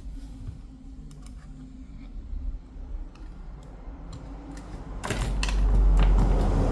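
Small clicks and taps of tools and parts being handled during a tablet teardown, then a louder rough rumbling noise with sharper clicks from about five seconds in.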